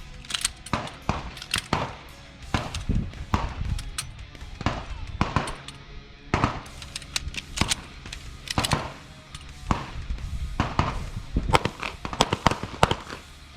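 Pistol shots from several shooters on a firing line, many sharp reports at irregular intervals, over background music.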